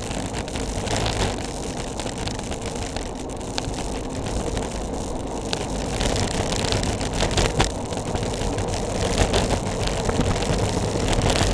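Wind rushing over the microphone and tyres rumbling on the road surface as a bicycle descends at speed, with a few sharp knocks and rattles from bumps.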